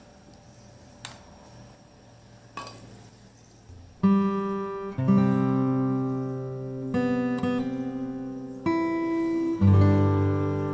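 A few light clicks, then strummed acoustic guitar music that starts abruptly about four seconds in, its chords changing every second or so.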